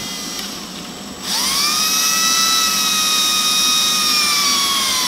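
Cordless drill running forward as it bores a hole through an RV's fiberglass sidewall. The steady motor whine speeds up about a second in, getting louder and higher, then holds with a slight sag in pitch under load.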